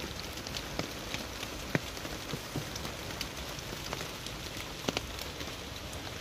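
Heavy drizzle falling steadily, with scattered sharp drop taps on the shelter roof; two taps stand out louder, at about two and five seconds in.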